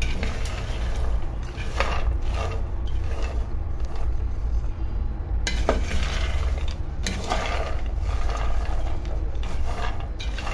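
Freshly roasted peanuts being stirred in a hot pan with a wooden spoon: the dry nuts rattle and scrape against the pan in irregular strokes, over a steady low hum.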